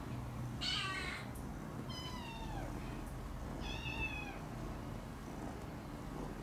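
Kitten meowing three times in short high calls, the second one sliding down in pitch.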